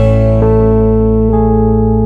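Background music: sustained chords over a steady held bass, with new notes coming in about half a second in and again after a little over a second.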